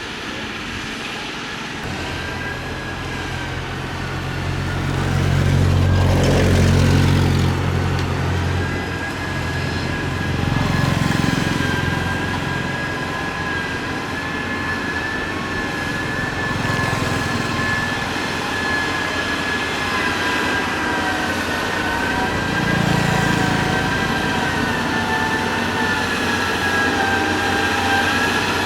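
Motor grader's diesel engine working under load, swelling louder for a few seconds about five seconds in, then running on steadily. A thin steady whine sounds over it from about nine seconds in.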